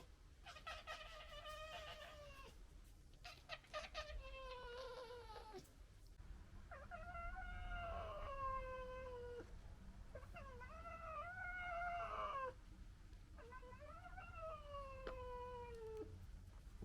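Red foxes squabbling: about five long, wavering, whining wails in a row, each sliding down in pitch. Some are led in by a rapid clicking chatter, the gekkering of a fox dispute.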